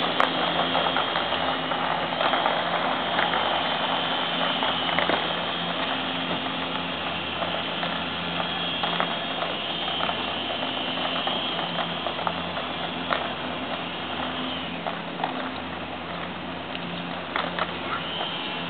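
Rattling clatter of inline skate wheels rolling over the rink floor, with scattered sharp clicks and a steady low hum underneath.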